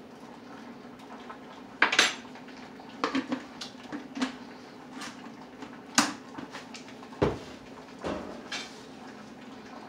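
Cookware clinking and knocking: a utensil striking a saucepan and pan on the stove, with a dozen or so separate sharp clinks and one duller thump about seven seconds in, over a faint steady low hum.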